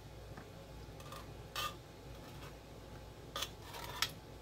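A spoon scraping and clinking against the inside of a metal can as thick condensed cream soup is worked out into a mixing bowl: a few short, light scrapes spread across a quiet stretch.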